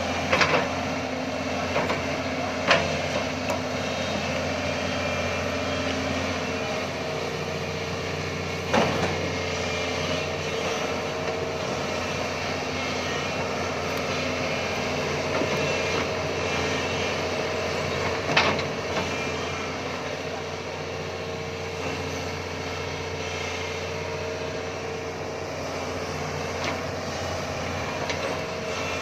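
Doosan crawler excavator's diesel engine running steadily, with a few sharp knocks scattered through.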